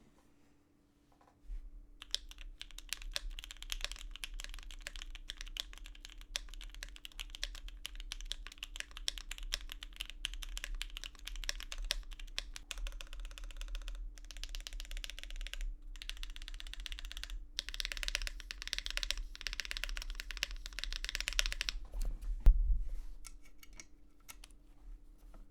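Mechanical keyboard with lubed switches being typed on fast, a dense, continuous clatter of keystrokes. About 22 seconds in, one louder thump stands out, followed by a few lighter key presses.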